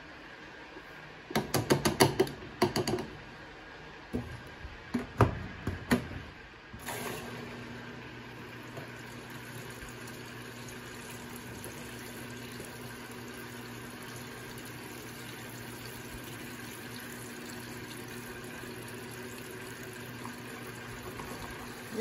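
Electrolux Turbo Economia 6 kg (LTD06) top-loading washing machine filling: from about seven seconds in, water runs steadily into the drum with a low steady hum. Before that come two bursts of clattering knocks.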